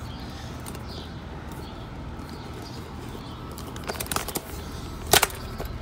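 Outdoor background with a steady low rumble and faint bird chirps early on, then a few sharp clicks about four seconds in and a loud knock a little after five seconds, from handling.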